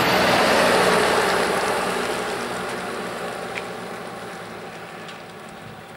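Diesel farm tractor towing a trailer drives past and away. Its engine and road noise are loudest about half a second in and then fade steadily.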